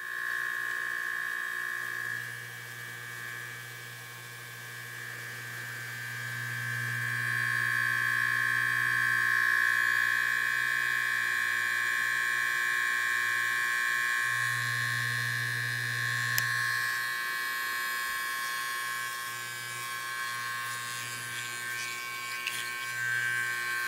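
Vintage Andis Junior Deluxe electric hair clipper, dated by its patents to the 1920s, running with a steady, smooth buzz.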